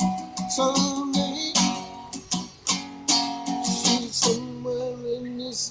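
Acoustic guitar strummed in a steady rhythm of chords, with a long held note near the end.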